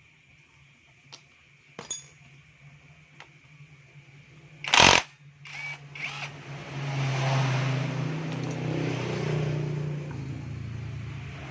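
Light metallic clinks of tools on engine parts, then a single loud metal clank about five seconds in, followed by a steady mechanical running sound, a low hum with a hiss over it, for the rest.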